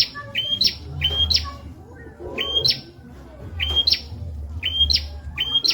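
Prenjak (prinia) singing: a loud, repeated two-part call, a short steady high note that jumps to a sharper, higher note, given about twice a second, with a short pause near the middle. A low steady hum runs underneath.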